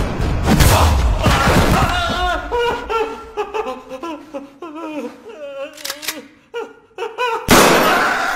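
A man groaning and crying out in pain, his voice wavering and bending in pitch. Loud sudden hits come just after the start and again near the end.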